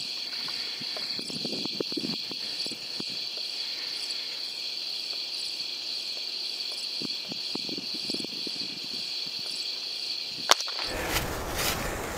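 Night insects (crickets) trilling steadily at a high pitch over faint low rustles. About ten and a half seconds in there is one sharp crack, and then dry leaves crunch and scrape as a dead hog is dragged across leaf litter.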